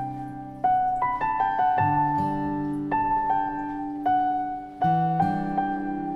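Slow, gentle solo piano music: single notes and chords struck about every half second to a second, each left to ring and fade.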